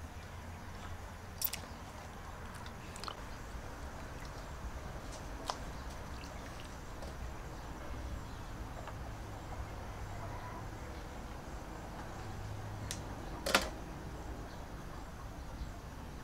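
Hands cleaning squid in a metal basin of water: faint wet handling with a few light clicks, the sharpest about thirteen seconds in, over a steady low background hum.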